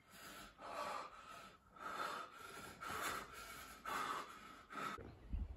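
A person breathing quickly and audibly, about one breath a second, five in all.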